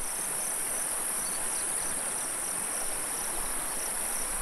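A steady, high-pitched insect buzz with a second insect chirping in short, even pulses about three times a second, over the hiss of a shallow, rippling stream.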